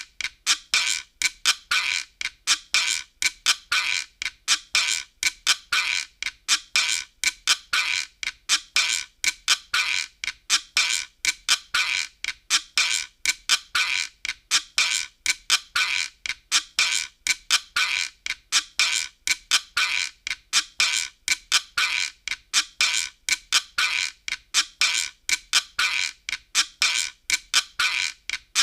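Optigan optical organ playing a percussion rhythm loop: a steady, even pattern of short, bright clicking hits, about three to four a second, thin and with almost no bass.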